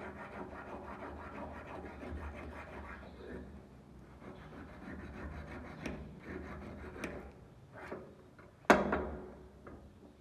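A hand brush scrubbing the rusty steel blade of a small knife with rapid back-and-forth strokes, a dense scratching that thins out after the first half. A few light clicks follow, then one loud, sharp knock about three-quarters of the way in.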